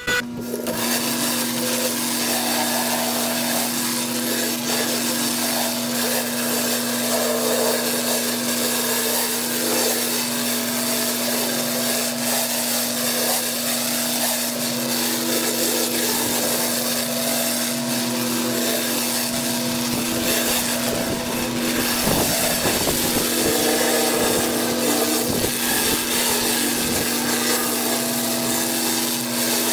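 Pressure washer running under load: a steady pitched engine hum beneath the hiss of the water jet spraying.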